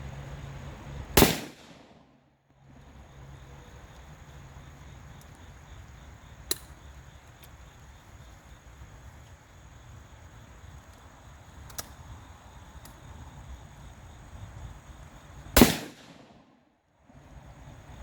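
Two loud single gunshots about fourteen seconds apart, one about a second in and one near the end, with a few faint sharp cracks in between.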